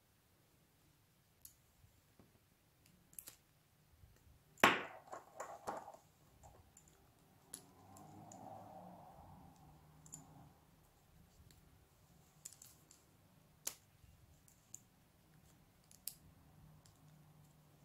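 Scattered small clicks and a soft rustle from hands working paracord around a metal swivel snap hook. The loudest click comes about four and a half seconds in, followed by a few quicker ones.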